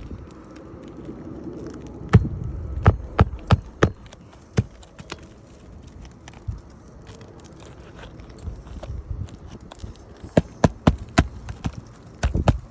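Hammer striking roofing nails into an asphalt shingle: sharp, irregular knocks in two runs, the first about two seconds in and the second starting near the end.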